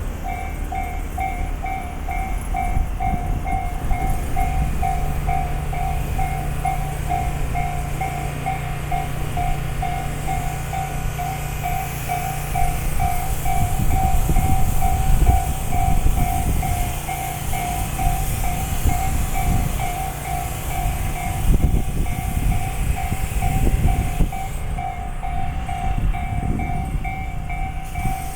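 A Japanese railway level-crossing warning bell rings in a steady, fast-pulsing two-tone beat while a train runs over the crossing. Its rumble grows louder through the middle, with sharp clacks from the wheels over the rail joints.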